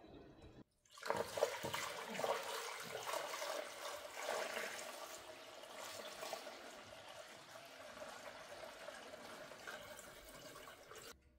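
Water pouring into a truck's radiator: a steady gushing fill that starts about a second in and slowly tapers off.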